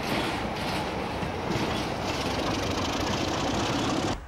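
Diesel locomotive engine running steadily and loudly close by. It cuts off suddenly near the end.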